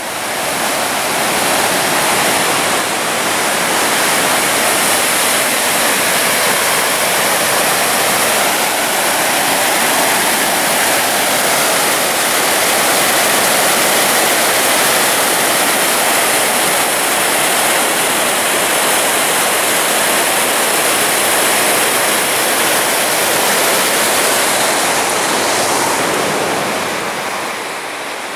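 Whitewater creek rushing steadily over boulders and through rapids, a loud, even wash of water noise that eases slightly near the end.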